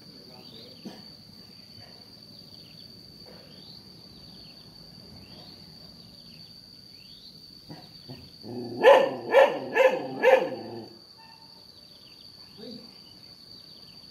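A dog barks four times in quick succession, about two-thirds of the way in, over a steady high-pitched insect trill that runs underneath.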